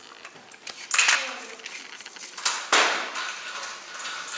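A child's kick scooter clattering and scraping on a wooden floor: sharp rattles about a second in, again around two and a half seconds in, and at the end.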